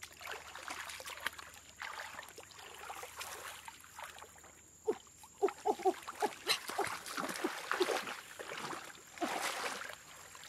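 Hands splashing and sloshing through shallow, muddy stream water in irregular bursts, with a run of quick drips and splashes around the middle.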